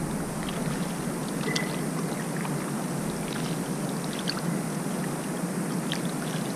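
Water lapping and trickling against the hull of a small boat, a steady wash with scattered faint ticks and a brief high chirp about a second and a half in.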